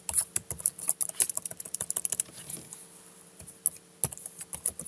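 Typing on a computer keyboard: a quick run of key clicks that thins out after about two seconds, then a few scattered keystrokes.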